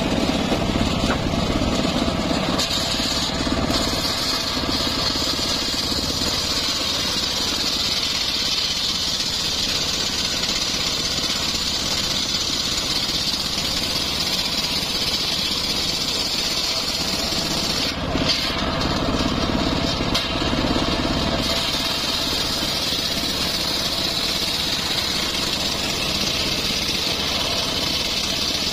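Homemade engine-driven circular sawmill running steadily, its large blade ripping a teak slab lengthwise with a continuous high-pitched cutting noise over the engine. The cutting noise lets up for a few seconds about two-thirds of the way through, then picks up again.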